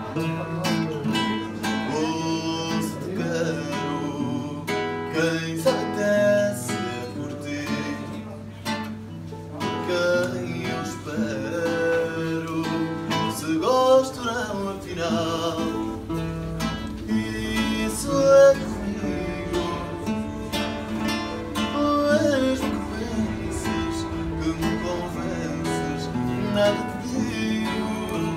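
A man singing fado, accompanying himself on an acoustic guitar: plucked and strummed chords under long, wavering sung notes.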